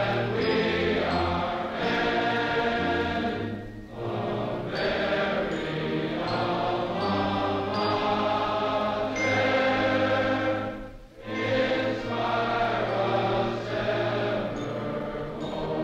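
A choir singing sustained chords in long phrases, with short breaks about four and eleven seconds in.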